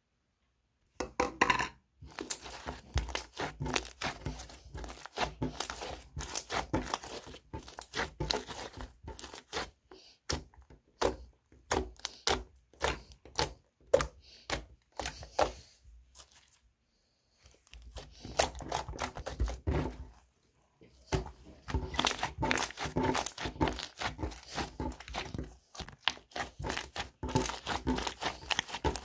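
Gold glitter slime squished, poked and kneaded by hand, making dense, irregular wet clicks, pops and crackles. The sounds start about a second in, with a couple of brief lulls.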